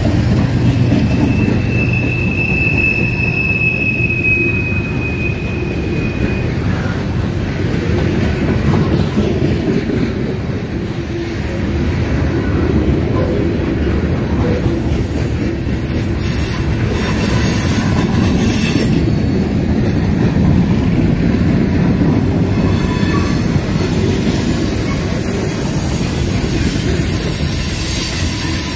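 Freight train cars rolling past close by: a steady rumble and clatter of steel wheels on the rails. A thin, high wheel squeal runs for a few seconds near the start, with a fainter high squeal near the end.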